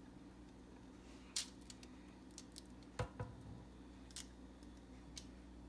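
A few faint clicks and taps of a utensil against the bowl and pan as thick banana bread batter is scraped out of a mixing bowl into a baking pan, with a soft thump about three seconds in, over a steady low hum.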